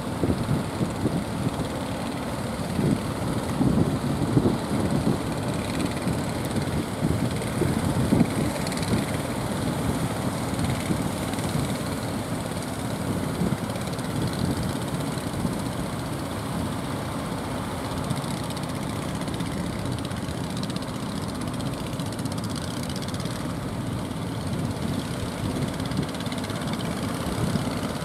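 Strong, gusty wind buffeting the microphone over a steady rush of surf, with no clear engine tone.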